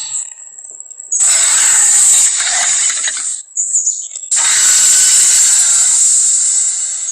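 Two long, harsh creature roars from a giant-monster film sound effect, the first about two seconds long starting about a second in, the second about three seconds long.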